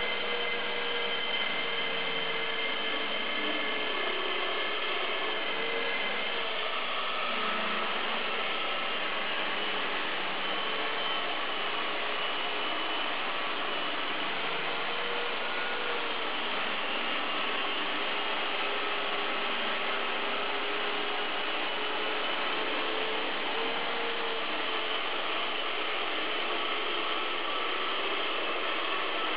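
Stand-mounted core drill boring through a wall: the motor runs steadily under load as the bit grinds into the wall, its pitch wavering slightly as the load changes.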